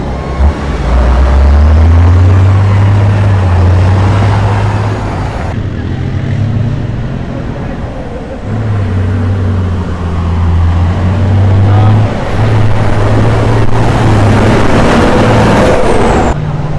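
Heavy off-road trial trucks' diesel engines revving hard under load as they drive through deep mud and water, the engine note rising and falling. The sound changes abruptly twice, about a third of the way in and near the end, as one truck gives way to another.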